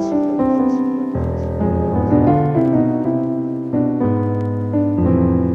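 Piano music: a melody over sustained chords, with the chord and bass note changing every second or so.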